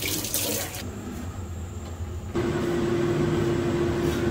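Tap water running briefly into a steel sink. Then, a little over two seconds in, a steady mechanical hum with one level droning tone starts suddenly and holds, near a lidded wok on a gas stove.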